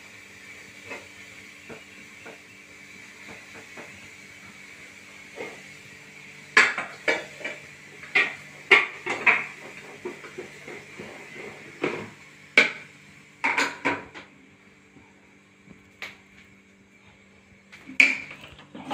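Stainless steel idli pot, plates and lids clanking as they are handled, in scattered sharp knocks that bunch up about six to ten seconds in and again around twelve to fourteen seconds, with a last clank near the end.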